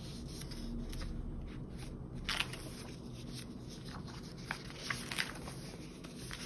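Paper pages of a spiral-bound planner being turned and smoothed by hand: a few short, crisp paper rustles, the sharpest about two and a half seconds in and a small cluster near the end.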